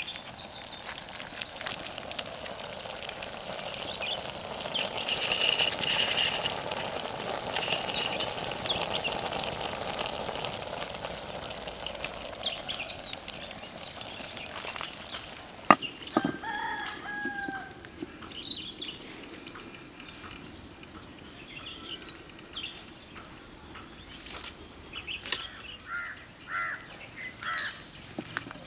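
Chickens clucking and calling with short falling calls, over the crackle of a small wood fire burning under a clay cooking pot. A steady hiss fills the first half, and a single sharp knock comes about halfway through.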